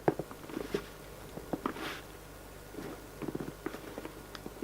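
Handling noise from a diesel heater unit being turned over in the hands: scattered light clicks, taps and rustles.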